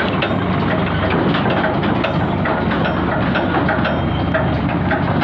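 Swaraj 744 XT tractor's diesel engine running steadily as the tractor reverses up to a trolley, with a constant fast metallic clatter over the engine note.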